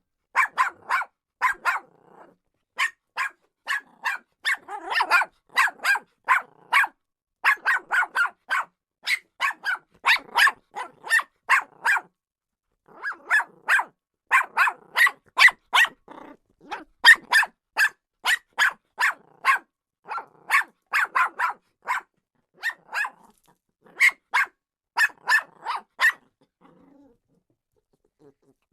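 Jack Russell Terrier barking: rapid, sharp barks, two to three a second, in runs of several with short pauses between them, stopping shortly before the end.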